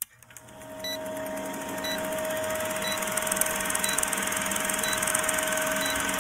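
Old film projector running with a fast, even clatter and a steady hum, fading in over the first second, with a short beep about once a second as in a film-leader countdown.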